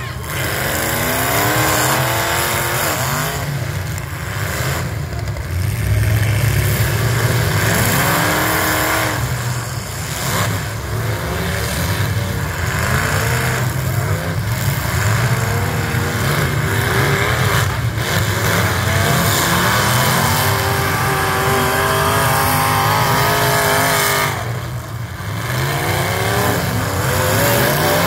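Several demolition derby stock cars' engines revving hard and rising and falling in pitch, overlapping all the way through, as the cars accelerate and ram each other, with a few brief crunches of collisions.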